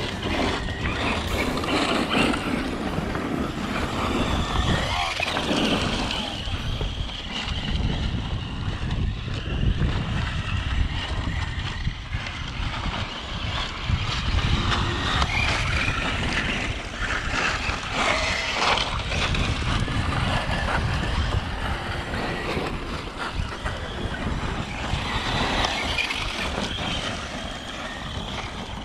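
Electric RC trucks driving on dirt, their brushless motors whining up and down in pitch as they speed up and slow down, under a steady low rumble.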